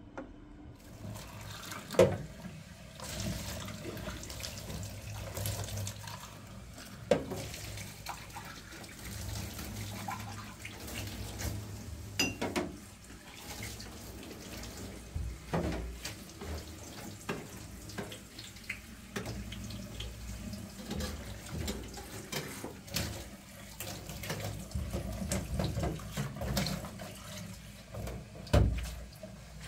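Water running from a kitchen tap into a sink, with scattered knocks and clinks.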